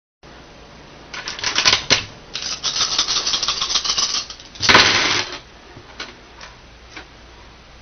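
A handful of plastic dice clattering: rattling as they are scooped up and shaken in the hand, then rolled out onto a wooden tabletop in one loud burst just before the halfway mark, with a few single clicks after as they settle.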